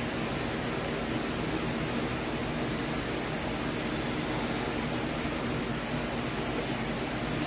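Steady hiss with a faint low hum and no distinct events: room tone.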